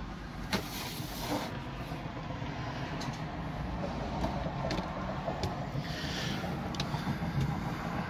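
Steady low room hum of a shop, with a few light clicks and short rustles of plastic toy packaging being handled.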